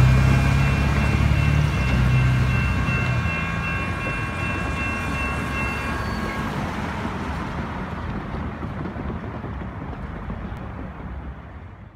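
Electronic railroad crossing bells ringing steadily as the gates rise, stopping about six seconds in. Road traffic moves back across the crossing underneath, with a loud low engine hum in the first few seconds.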